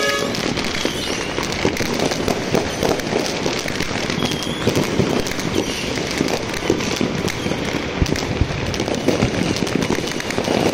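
Many fireworks going off at once: a dense, continuous run of overlapping bangs, pops and crackles from rockets and firecrackers bursting.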